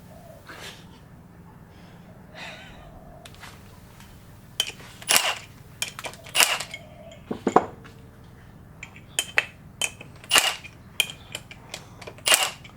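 Metal engine parts and tools clinking and clacking as they are handled: after about four seconds of quiet, a run of sharp, irregular metallic knocks and clicks.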